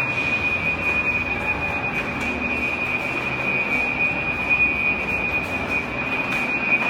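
Building fire alarm sounding one continuous high-pitched tone over steady background noise.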